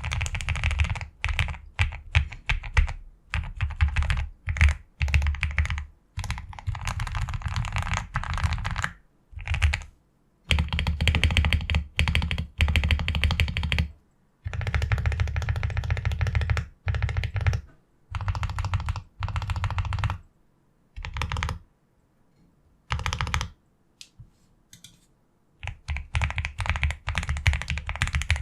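Typing on a QK65 custom mechanical keyboard with Akko POM Silver linear switches on a POM plate, taped PCB and foam in the case: fast runs of keystrokes in spells of a few seconds with short pauses, and only a few single presses for a while after the middle.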